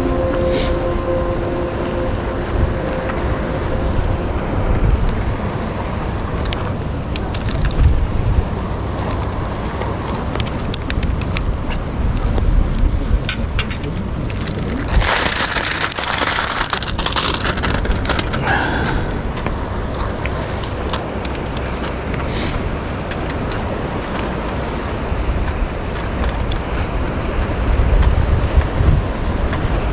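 Wind noise on the microphone with small handling clicks. About fifteen seconds in, a plastic bag holding caught horse mackerel rustles loudly for about two seconds, with a shorter rustle just after.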